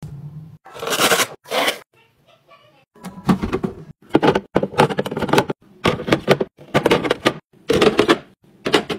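Clear plastic organizer drawers sliding in and out, a run of short plastic scrapes and clacks, one or two a second.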